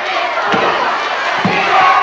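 A large crowd of high-school students yelling and cheering, with a low thump about once a second.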